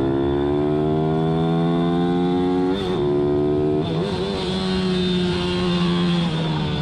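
A racing pit bike's engine heard onboard under hard acceleration: the revs climb for almost three seconds, break for quick upshifts about three and four seconds in, then hold and ease off, dipping again near the end.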